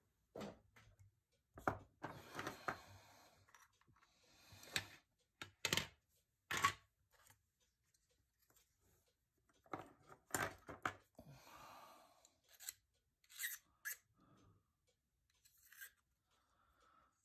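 Plastic model kit parts being handled and fitted together on a cutting mat: irregular sharp clicks and taps of hard plastic with short scraping rustles, quiet in between, with a pause in the middle.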